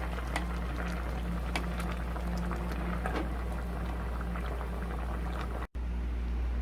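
A pot of gochujang stew bubbling at a simmer, with irregular small pops over a steady low hum. About five and a half seconds in the sound cuts off abruptly and gives way to a steady hiss.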